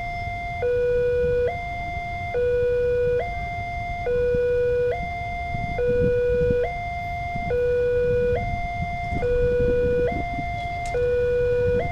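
Electronic two-tone warning siren of an Indonesian railway level crossing. It alternates steadily between a higher and a lower tone, each held a little under a second, and the higher tone is louder. It signals that a train is approaching.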